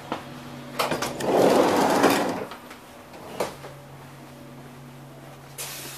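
A railway coach's interior sliding door opening, a noisy rush lasting about a second, with a few sharp knocks from the door and footsteps, over the steady hum of the standing train's onboard equipment.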